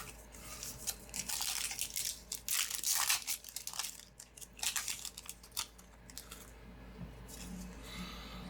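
Foil Yu-Gi-Oh booster pack wrapper being torn open and crinkled: a dense run of irregular rustling crackles for the first few seconds, thinning to lighter, scattered rustles.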